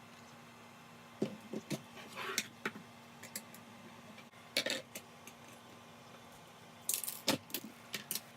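Small hard plastic and metal parts of a toy transformation belt clicking and rattling as they are handled during disassembly, in several short clusters. The loudest clatter comes near the end.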